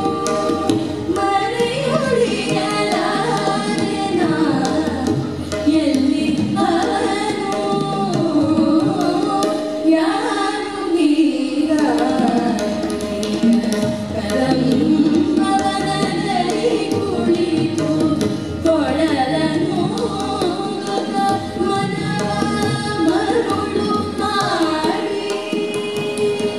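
Female voices singing an Indian classical-style melody, accompanied by tabla and an electronic keyboard.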